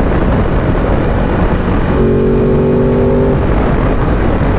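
Ducati DesertX Rally's 937 cc L-twin engine running at road speed, mixed with heavy wind and road noise. A steady droning note holds for just over a second past the middle.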